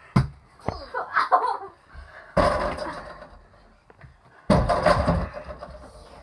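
Two loud slams against a door, about two seconds apart, each starting suddenly and trailing off in a rattle. A couple of sharper knocks come before them.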